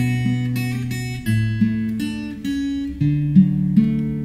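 Solo steel-string acoustic guitar, picked chords and bass notes struck one after another and left to ring.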